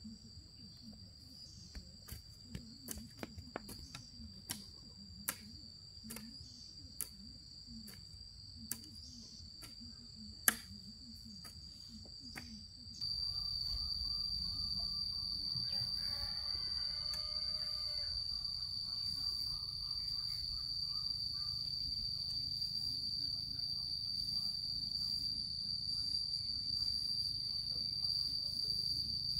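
Insects keep up one steady, high, unbroken drone. In the first part there are scattered sharp clicks and knocks. Nearly halfway through, the sound cuts to a louder take in which low rumbling noise lies under a stronger insect drone.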